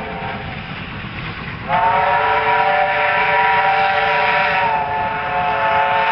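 NSWGR five-chime steam locomotive whistle sounding a long blast. It starts about a second and a half in with a brief upward slide into a full chord of several notes and holds, sagging slightly near the end. A low rumble from the approaching train runs underneath.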